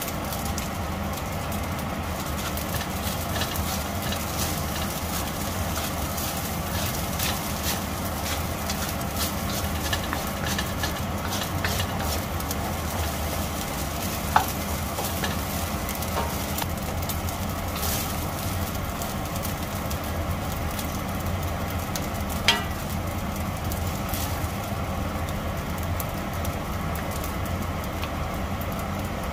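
Wooden spatula stirring and scraping fried rice with prawns around a stainless steel wok, over a frying sizzle and a steady low hum. Two sharp knocks stand out, about halfway through and again about three-quarters of the way through.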